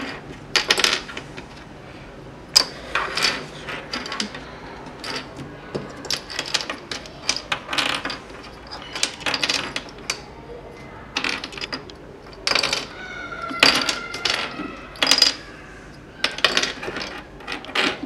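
Loose plastic Rubik's Cube pieces clicking and clattering as they are picked up and set down on a tabletop, in irregular light knocks. A brief steady high tone sounds about two-thirds of the way through.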